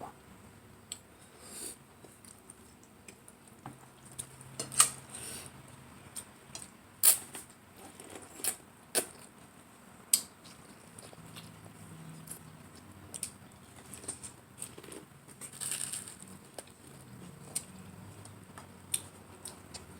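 Close-up eating sounds from spaghetti: wet chewing and slurping, with scattered short clicks and smacks of mouth or cutlery.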